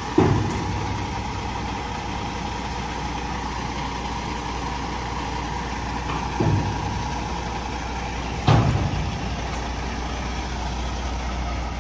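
Diesel engine of a tri-axle dump truck running steadily while it unloads dirt from its raised bed. Three heavy thumps stand out: one right at the start, one about six and a half seconds in, and one about two seconds after that.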